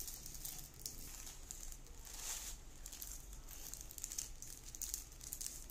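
Plastic packaging crinkling and rustling as a thin plastic carry bag and foil balloon packets are handled and pulled open: an irregular, continuous crackle.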